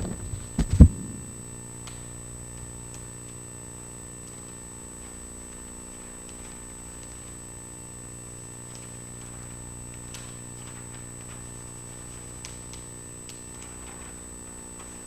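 Steady electrical hum with a thin high whine. There are a couple of dull thumps about a second in, and faint rustles and taps as a painted paper sheet is folded and pressed flat on an easel.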